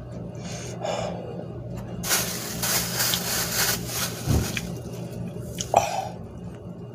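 A man breathing hard through his open mouth, with a long, loud hissing breath in the middle and a short cough-like burst near the end: his reaction to the burn of super spicy instant noodles.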